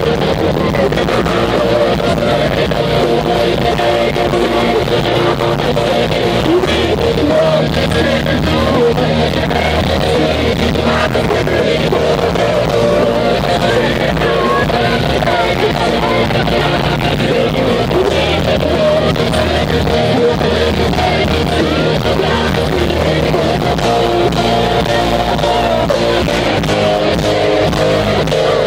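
Live rock band playing loudly with electric guitars, drums and a sung lead vocal, heard from within the crowd.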